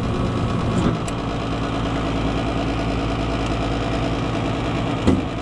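Gas furnace running, a steady motor and fan hum, with a brief knock about five seconds in.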